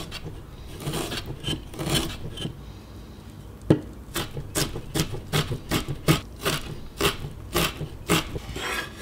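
Broad-bladed kitchen knife cutting ginger on a wooden chopping board. Softer slicing and scraping strokes come first, then from about four seconds in a quick run of sharp knife strikes on the board, about two to three a second, as the ginger is minced.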